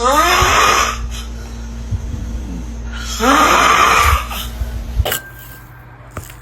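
Strange-sounding snoring: two loud snores about three seconds apart, each sweeping upward in pitch, with a faint steady tone held between them.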